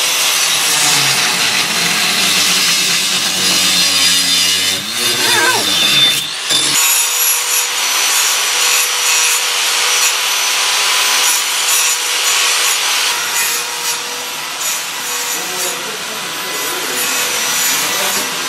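Angle grinder cutting through steel roll-cage tubing: a loud, steady grinding hiss over the motor's whine. The motor's pitch wavers and drops about five to six seconds in, and the grinding carries on steadily after that.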